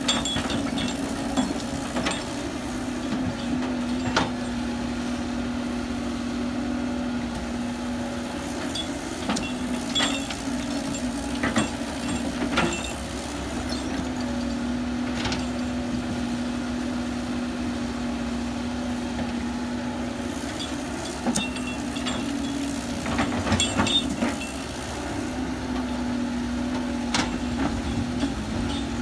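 Heavy construction machine's engine running steadily, with scattered sharp clanks and knocks of metal and earth work throughout.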